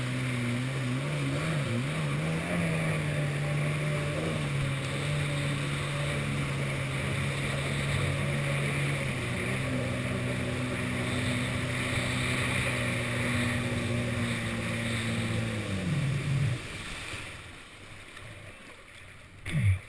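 Yamaha SuperJet stand-up jet ski engine running steadily at speed over the hiss of spray and wind, with a brief change in revs about two seconds in. About four-fifths of the way through, the throttle comes off: the pitch falls and the engine drops away, leaving quieter water sounds and one brief loud falling tone near the end.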